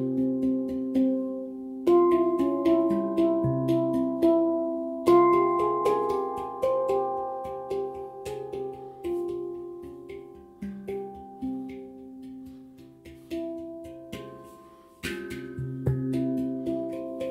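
Calm instrumental background music: ringing pitched notes that start sharply and fade, in slow chords that change every few seconds.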